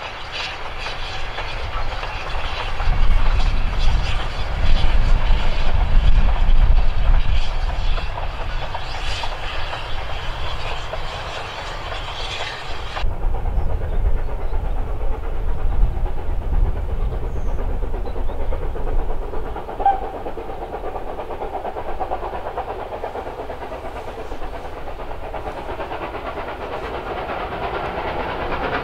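Wagons of a short goods train rolling past, the wheels clicking over rail joints. After an abrupt cut about halfway through, a fainter, steadier rumble of a train, growing louder near the end.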